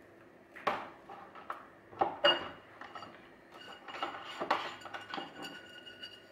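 Small nonstick frying pan handled and brushed with oil using a silicone pastry brush. A series of sharp knocks comes first, then clinks and scraping of the brush in the pan, and the metal pan rings faintly.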